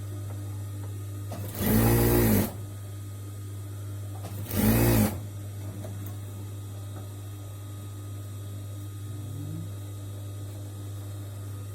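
Sewing machine stitching shirt fabric in two short runs, the first just under a second long and the second about half a second, over a steady low hum.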